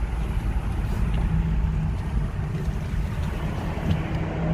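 Low steady rumble of a Hyundai Kona EV rolling slowly with the steering at full lock, heard through an open window, with a faint steady hum coming and going. No sharp tick stands out.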